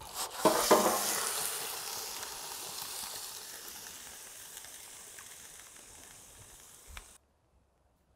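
Butterflied chicken sizzling as it is tipped onto a hot, foil-lined shovel blade over charcoal, with a couple of knocks as it lands. The sizzle starts loud, fades steadily and cuts off suddenly about seven seconds in.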